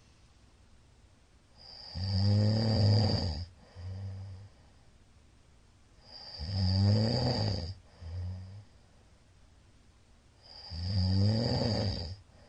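A middle-aged man snoring loudly in his sleep: three long, rumbling snores about four and a half seconds apart, each rising slightly in pitch and followed by a brief softer snort.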